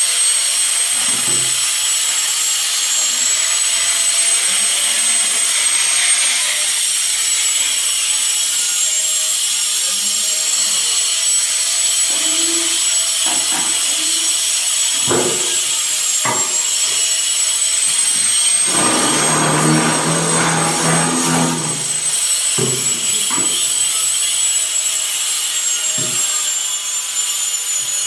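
Carpentry power-tool noise: a steady high whine and hiss runs throughout, broken by scattered short wooden knocks. About two-thirds of the way in, a motor runs for about three seconds.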